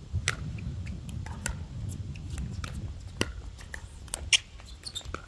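Pickleball rally: paddles striking the plastic ball with sharp pops, the loudest a little over four seconds in, with smaller clicks between. Wind rumbles on the microphone throughout.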